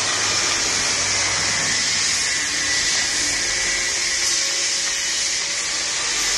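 Automatic cup filling and sealing machine running: a steady high hiss with a faint low hum beneath.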